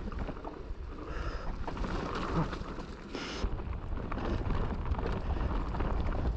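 Wind rumbling on the microphone of a mountain biker's action camera, with a brief higher sound about three seconds in.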